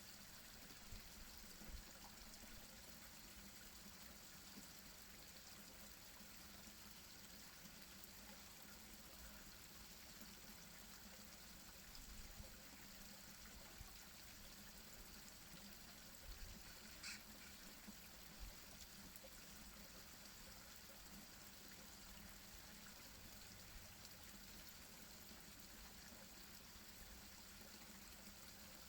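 Garden pond waterfall: water falling steadily into the pond, faint and even. A brief high-pitched sound cuts in about two-thirds of the way through.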